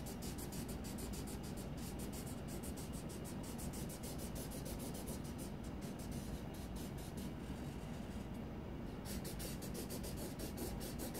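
Felt-tip marker rubbing on paper in quick, repeated back-and-forth strokes as an area is coloured in.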